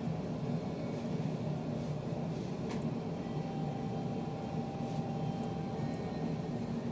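Steady low mechanical hum of a running motor, even throughout.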